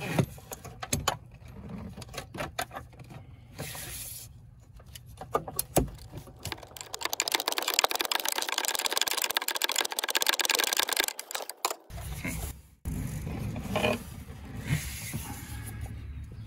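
A hand ratchet with a 24 mm socket, working on an oil filter cap. It gives scattered clicks and knocks at first, then clicks fast for about four seconds as the cap is spun loose. Near the end come rubbing and bumping sounds as the cap and filter cartridge are handled.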